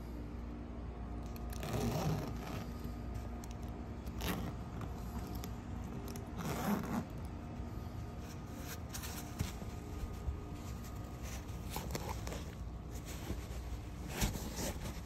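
The metal zippers of a BRIC'S leather backpack are pulled open in several short rasps, with the rustle and scrape of the bag being handled, over a steady low hum.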